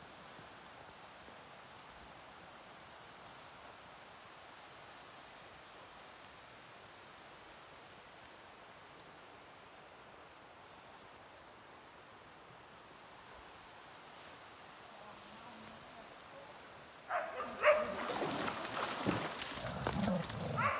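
Quiet woodland background with faint, repeated high bird chirps. About seventeen seconds in, dogs suddenly start barking loudly, several barks in quick succession.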